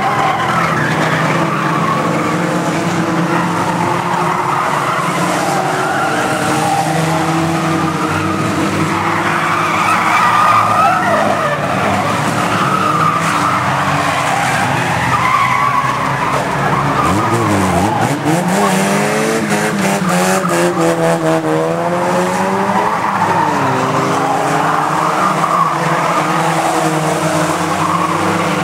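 Banger stock car engines racing on an oval, several running at once and revving up and down as the cars lap and pass. About two-thirds of the way through, one engine drops sharply and then climbs steeply again, with wavering revs after it.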